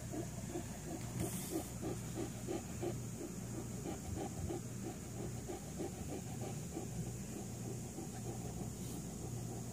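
Shar Pei close by, making a quick, even run of mouth or breath sounds, about three a second, that stops shortly before the end.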